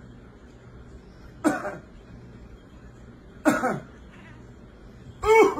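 House cat giving three short, squeaky meows about two seconds apart, the last one rising then falling in pitch.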